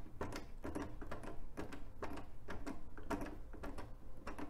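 A small screw being hand-driven into a plastic motorcycle lower fairing, with short clicks about twice a second as it is turned.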